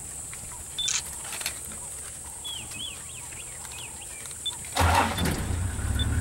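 Short repeated bird chirps over quiet bush ambience, with a click about a second in. About five seconds in, a vehicle engine's low rumble starts suddenly and keeps running.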